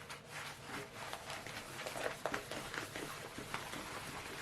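Rolled paint-by-number canvas being handled and rolled the other way by hand: a run of irregular crinkling, crackling rustles, thickest about two to three seconds in.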